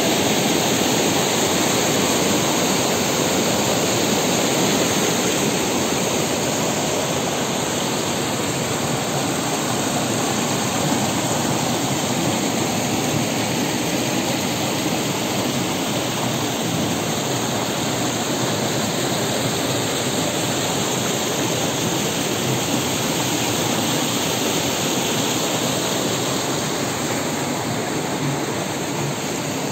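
Rain-swollen, muddy river in flood rushing fast and turbulent, a steady loud roar of water. It grows slightly quieter toward the end.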